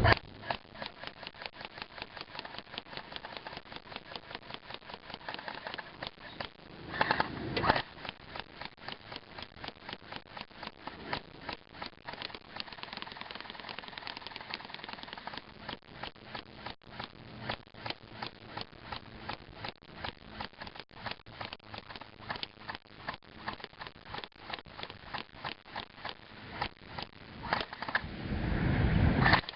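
Airsoft guns firing a steady run of single shots at a plasma TV, about two to three sharp cracks a second, with BB impacts on the set. Twice, around seven seconds in and near the end, a louder, fuller noise rises over the shots.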